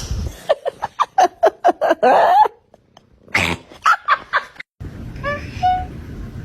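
Domestic cat making a fast string of short chirping calls for about two and a half seconds, a few more after a short pause, then a different cat gives a brief chirping meow near the end.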